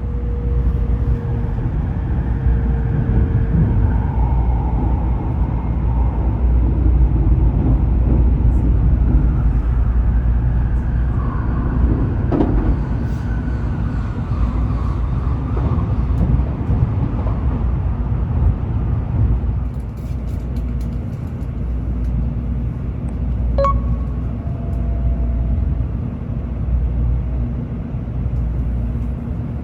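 Tokaido Shinkansen Kodama train running at speed, heard from inside the passenger car: a steady low rumble with faint whining tones that drift slightly in pitch. A single short click sounds near the end.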